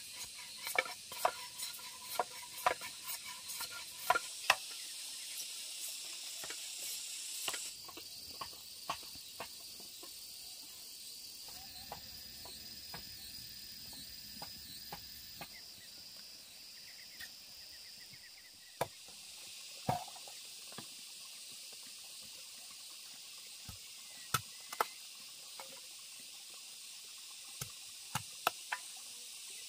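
Food sizzling in a pan with scattered clinks and knocks of utensils. The knocks come thickest in the first few seconds and again near the end, and the sizzle eases about a third of the way in.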